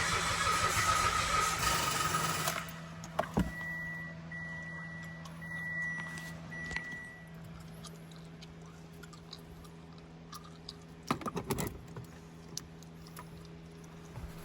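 A car's starter motor cranking, ending in a high free-spinning whine that cuts off suddenly about two and a half seconds in: the motor spins but the solenoid is too weak to engage the flywheel, because the cheap jump starter's battery has run flat. Then a few short high beeps and some clicks.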